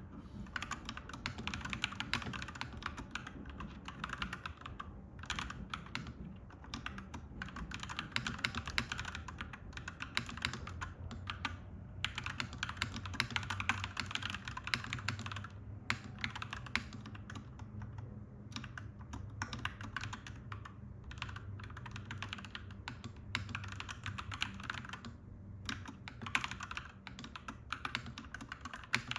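Typing on a clacky mechanical keyboard: runs of rapid keystrokes broken by brief pauses, over a steady low hum.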